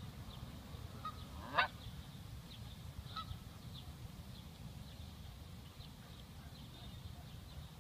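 Canada goose giving one short, loud honk about a second and a half in, then a fainter call near three seconds. Faint high chirps and a low steady rumble run underneath.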